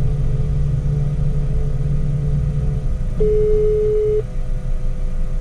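Phone ringback tone played over a smartphone's speaker: a single steady tone about a second long, sounding once about three seconds in, the outgoing call still ringing unanswered. A steady low rumble runs underneath.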